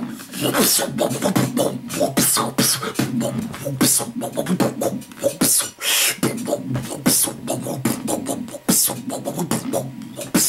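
Dubstep beatboxing into a handheld microphone: rapid kick and snare clicks and hissy hi-hat bursts over a buzzing mouth-made bass line, the beatbox drop.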